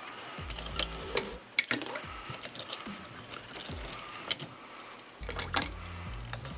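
Small rusty bike bolts and metal parts clinking and clicking as they are handled, a scatter of sharp clinks at irregular moments.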